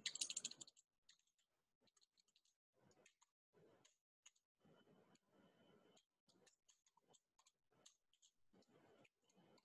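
Computer keyboard typing, faint: a quick run of keystrokes in the first second, then scattered soft key clicks.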